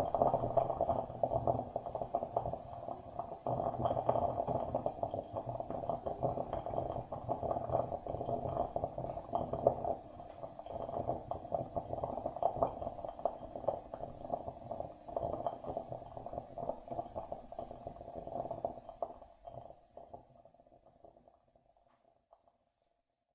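Coffee maker gurgling and sputtering as it brews, a dense bubbling that thins out and dies away in the last few seconds.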